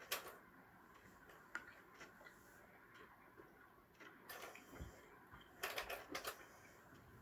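Faint scattered clicks and light handling noises over quiet room tone, with a small cluster of clicks in the second half.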